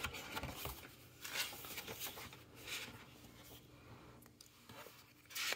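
Pages of a picture book being turned by hand: a series of soft paper rustles and brushes, the loudest near the end.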